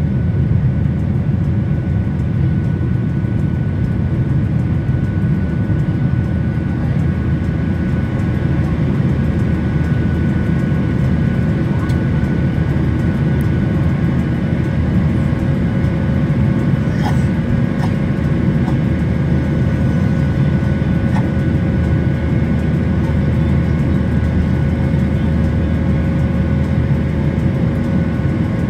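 Steady jet engine and airflow noise inside the cabin of a Boeing 737 climbing after take-off, with a low, even hum and a few steady engine tones above it. A few faint clicks sound about two-thirds of the way through.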